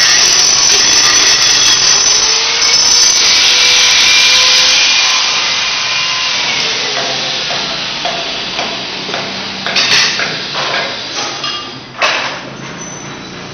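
Handheld electric power tool cutting tile: a steady, loud grinding whose motor tone winds down about five to six seconds in. Scattered knocks and clatter follow, with one sharp knock near the end.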